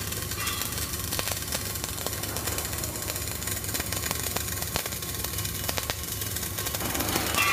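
Flux-cored arc welding arc crackling and spitting steadily with a dense run of sharp clicks, over a steady low hum, a little louder near the end.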